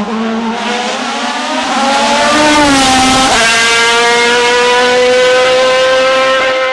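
Racing car engine accelerating hard up the hill, growing louder as it nears. It upshifts about three seconds in, with a sudden drop in pitch, then pulls steadily higher in the next gear.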